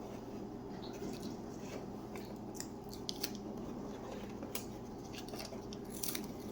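Scattered small clicks and taps of plastic dispenser parts and wiring being handled and fitted back together, over a steady low hum.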